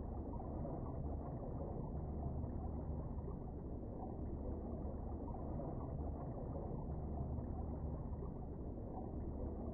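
Steady, muffled low rumble of underwater ambience picked up by a submerged camera, dull with almost no high sound and no distinct events.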